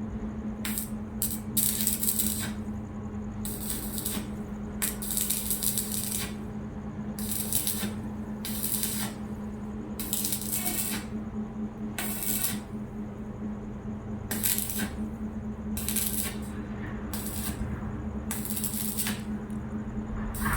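Electric arc welding: a welding machine hums steadily while the arc strikes in a string of short crackling bursts at irregular intervals, each from a fraction of a second to about a second long, typical of tack welds.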